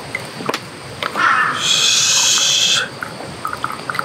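Broth poured from a small metal pot into a copper kettle: a splashing pour of about a second and a half, beginning about a second in, with a few light metal clicks around it.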